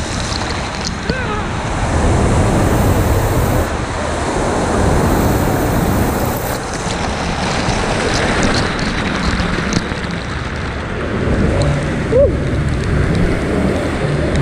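A waterfall pouring and splashing onto the water and over a waterproof action camera held at the water surface: a loud, continuous rush of churning water.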